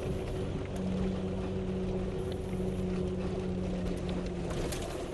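Four-wheel-drive vehicle's engine running steadily at low speed, heard from inside the cab as it crawls a rocky dirt trail, with scattered clicks and knocks from the rough ground.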